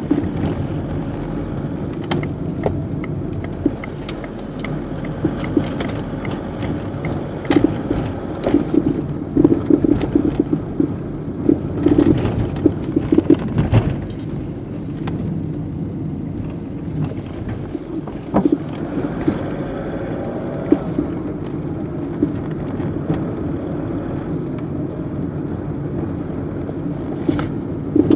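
A Citroën Berlingo van on the move, with steady road and engine noise and repeated sharp knocks from the front suspension, the sign of a worn anti-roll bar link. The knocks come thickest between about 8 and 14 seconds in, with single knocks later on.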